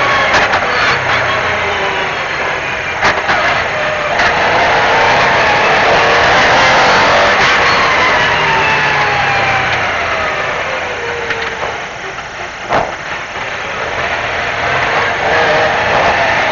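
MG Metro 6R4 rally car's V6 engine driven hard, its pitch falling and rising as it revs through the gears. A few sharp cracks break through, the strongest about 13 seconds in.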